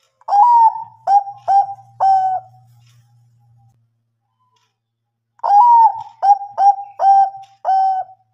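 Zebra dove of the Bangkok perkutut line cooing loudly in two phrases. The first has four notes and the second, near the end, has six. Each phrase opens with a longer bending coo, followed by short clipped coos.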